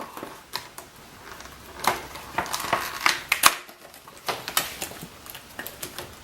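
Snack packaging being opened and handled: a run of sharp crackles and clicks, busiest from about two to three and a half seconds in.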